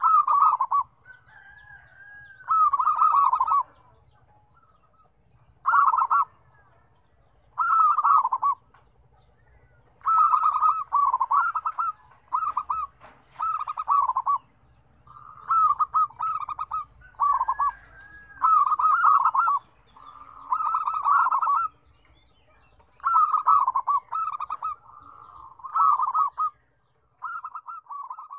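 Zebra doves (perkutut) cooing: bursts of quick, rolling staccato coos about a second long, one phrase following another every second or two, in differing tones.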